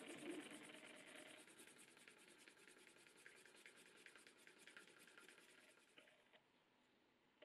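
Faint rubbing of a grooved wooden edge slicker worked quickly back and forth along the edge of a leather knife sheath, burnishing the edge. The rubbing stops about six seconds in.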